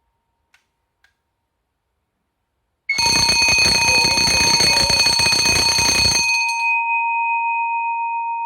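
Fire alarm bell ringing loudly for about three seconds as the fire alarm panel goes into alarm. The alarm is a false one, set off by a faulty differential-type heat detector that trips with no heat present. After the rattle stops, a steady ringing tone lingers and slowly fades.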